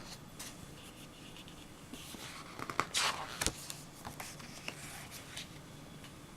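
Paper flyers and leaflets being handled and shuffled: soft rustling and scraping of paper with a few sharp clicks, busiest in the middle.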